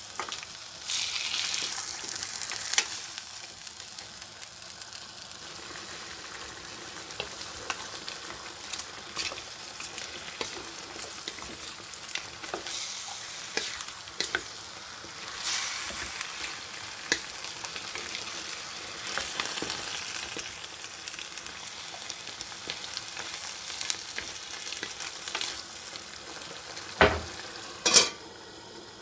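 Chicken wings and onions sizzling in a granite-coated non-stick pan while a wooden spatula stirs them, with small scrapes and knocks against the pan. Near the end a metal lid knocks twice as it is set on the pan.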